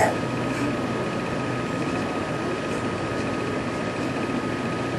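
Steady background hum and hiss with a faint constant high tone, like an appliance or fan running in the room.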